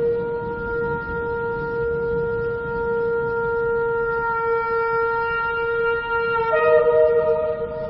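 Shofar sounding a long, steady held note. About six and a half seconds in, a second, higher note joins it.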